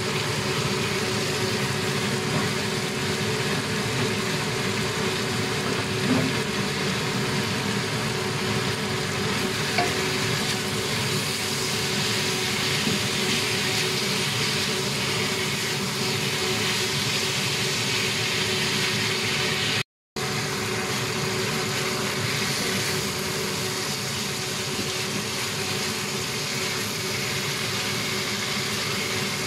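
Pork pieces sizzling in a hot iron wok as a silicone spatula stirs and scrapes them, over a steady hum. The sound breaks off for a moment about twenty seconds in.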